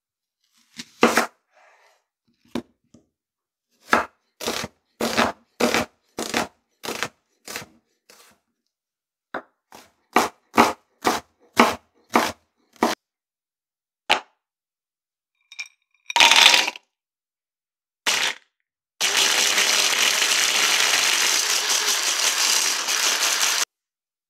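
Knife chopping an onion on a bamboo cutting board: a run of sharp knocks, about two a second at their quickest. Near the end a brief clatter and a click, then an electric mini chopper runs steadily for about five seconds, grinding cashews, and stops abruptly.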